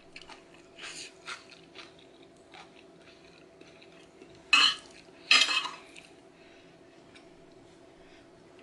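Metal fork and spoon clinking and scraping against a ceramic plate while eating. A few light clinks come first, then two louder ones a little after the middle, over a faint steady hum.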